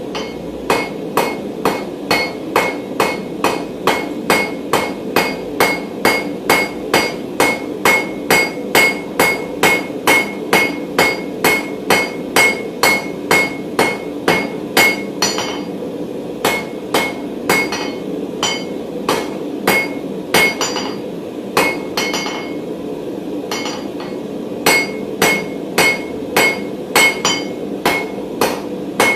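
Hand hammer striking hot mild steel bar on an anvil, about two ringing blows a second with a few short pauses, as the bar is drawn out to a square section and point. A steady low roar runs underneath.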